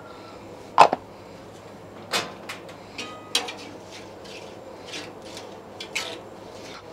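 Metal griddle spatula scraping and clinking on a steel griddle top while spreading cooking oil: a string of short scrapes and clicks, the sharpest about a second in.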